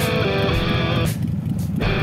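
Background music led by guitar, playing in phrases over a full low end.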